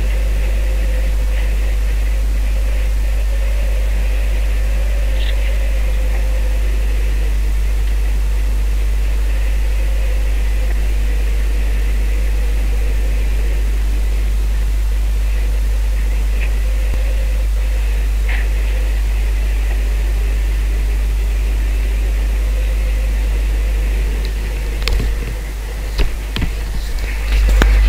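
Steady engine drone and rushing wind and water of a small boat under way at sea, with a few knocks near the end.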